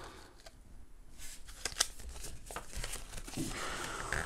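Paper rustling and crinkling as a folded instruction leaflet is handled and folded, a string of short crackles starting about a second in.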